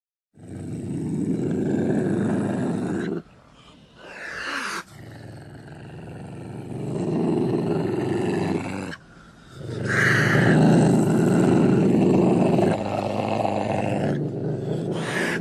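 A large wild animal roaring and growling in three long, rough calls with short breaks between them.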